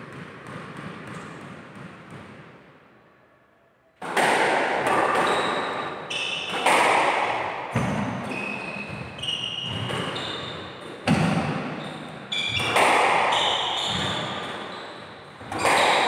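Squash rally: the ball cracking off rackets and the court walls every second or so, each hit ringing in the hall, with brief high squeaks between strokes. It starts about four seconds in, after a softer steady noise fades out.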